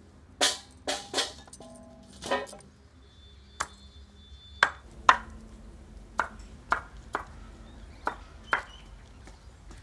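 A large kitchen knife chopping raw jackfruit on a wooden board: about a dozen sharp chops at an uneven pace, some followed by a brief metallic ring.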